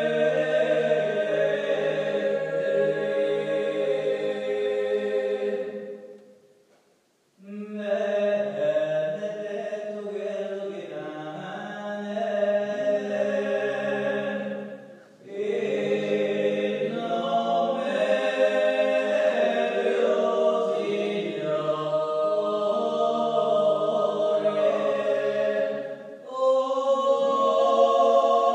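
Background vocal music: an a cappella choir chanting in held harmony, phrase after phrase. It breaks off briefly about six seconds in and dips again twice later.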